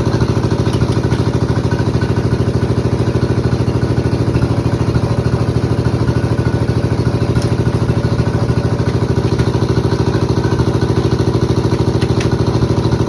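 Sawmill bandsaw's stationary engine running steadily at idle with a fast, even pulse, and a few light knocks of wood being handled.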